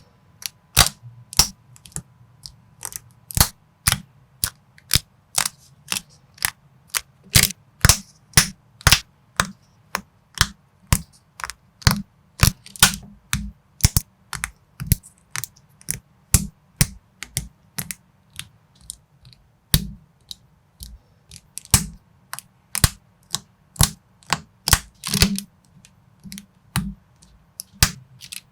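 Plastic building bricks being snapped and pressed together by hand in a quick, irregular run of sharp clicks, about two or three a second, with a brief rattle of loose pieces about 25 seconds in.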